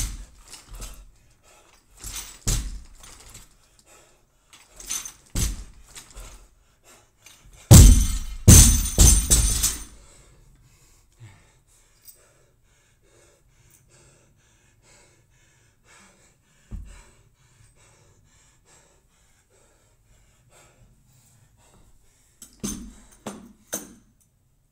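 Loaded barbell with bumper plates knocking and dropping on a rubber gym floor. A few single knocks come in the first five seconds, then a loud clattering drop and bounce with ringing metal about eight seconds in that lasts about two seconds. One lone thump follows later, and a short run of clanks from the bar and plates comes near the end.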